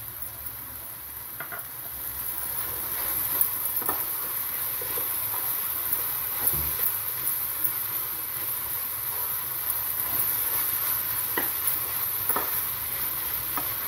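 Paneer and cabbage momo filling sizzling in a nonstick pan while a wooden spatula stirs it, with a few scrapes and taps of the spatula against the pan.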